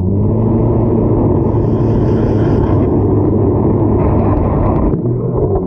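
Powered ice auger running steadily as it bores a hole through the ice. It drops off about five seconds in.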